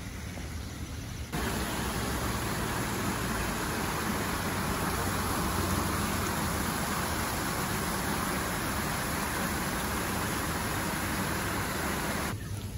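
Shallow stream running over pebbles: a steady rush of water that comes in abruptly about a second in and cuts off shortly before the end, with a fainter outdoor background before and after it.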